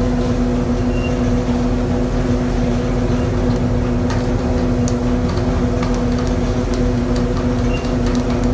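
Fishing vessel's machinery running at sea: a steady droning hum over a low rumble, with a few faint ticks.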